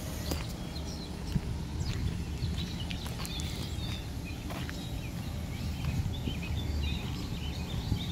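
Birds chirping over the low, steady rumble of a pickup truck's engine idling.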